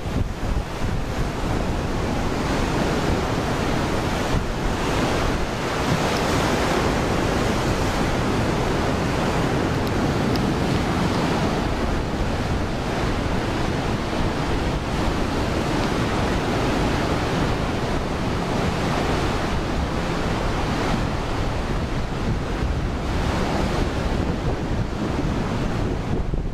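Waves breaking on a sandy beach in a steady wash, with wind buffeting the microphone.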